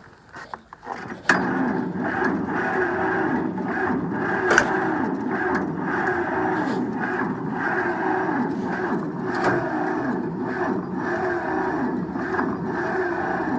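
John Deere 70 two-cylinder tractor engine, cold in winter, running steadily with an even pulsing beat. It comes in suddenly with a sharp click about a second in, after a quieter moment with a few clicks.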